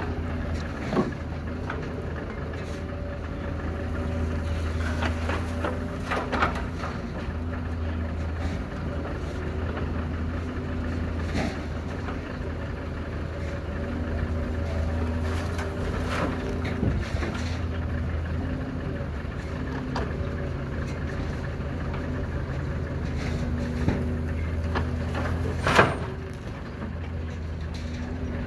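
Doosan excavator's diesel engine running steadily while it digs and loads rock, its note rising and falling as the hydraulics take load. Occasional clanks and knocks of rock and bucket, the loudest near the end.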